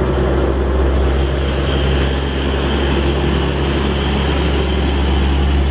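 Diesel engine of a Hino box truck running steadily as the truck drives along, a constant low drone with an even hiss over it from the tyres on the wet road.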